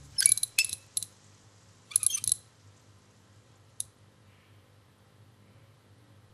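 Small metal pieces clinking and jingling in a few short bursts over the first two and a half seconds, with one last single clink near four seconds in.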